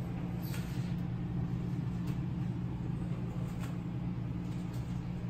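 Steady low hum in a kitchen, with a few faint clicks.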